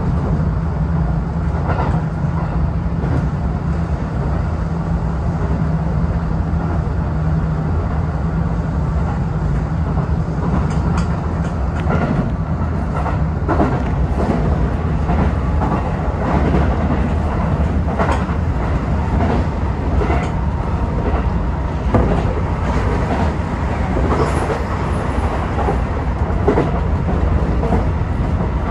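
Tokyo Metro 18000 series electric train running at speed, heard from inside the driver's cab: a steady rumble of wheels on rail with irregular clicks as the wheels pass rail joints and points, and a low steady hum for roughly the first half.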